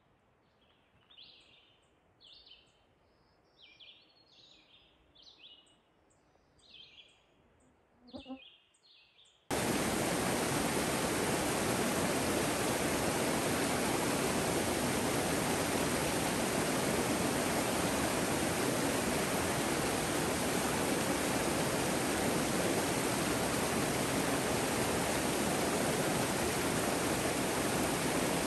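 Birds chirping against a quiet forest background, then, about ten seconds in, the sound switches abruptly to the loud, steady rush of a mountain creek's flowing water.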